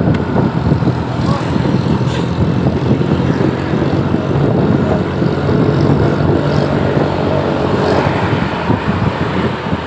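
Heavy road traffic running close by, a loud, steady low rumble of engine and road noise with no horn melody.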